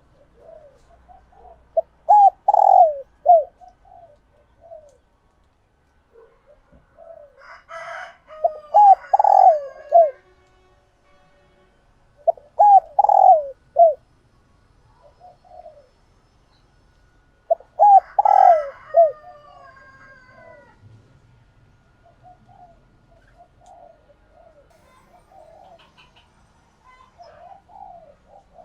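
Female spotted dove cooing in four bouts a few seconds apart, each a short run of falling coo notes, from a hen in breeding condition close to laying. Fainter higher chirps come with two of the bouts.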